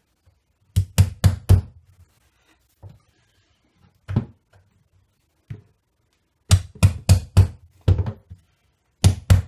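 Hammer driving small nails into a thin wooden strip fitted inside a wardrobe as a replacement drawer runner. Sharp knocks come in bursts: four quick blows about a second in, a few single taps through the middle, then a fast run of about seven blows, with another run starting near the end.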